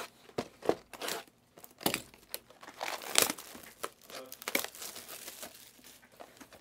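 Plastic shrink wrap crinkling and tearing in irregular rustles as it is pulled off a sealed trading card hobby box.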